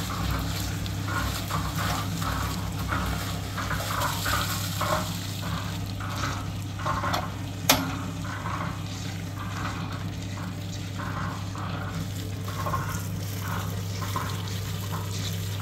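Drum concrete mixer running: a steady motor hum, with its rotating drum sloshing and scraping in a regular rhythm about twice a second. A single sharp click about halfway through.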